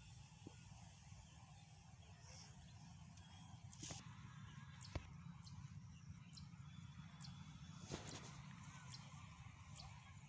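Faint outdoor background: a steady low rumble with a few short clicks and faint high ticks scattered through it.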